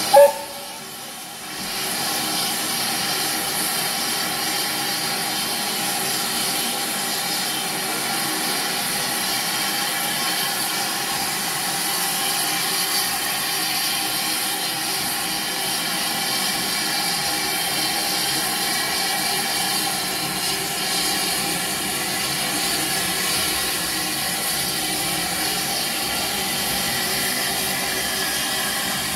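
Steam escaping steadily from the LSWR T3 class 4-4-0 steam locomotive, a continuous even hiss, after a brief loud blip at the very start.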